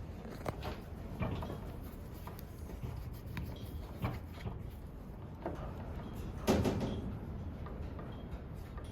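Scattered light knocks and clicks over a low rumble, with one louder thump about six and a half seconds in.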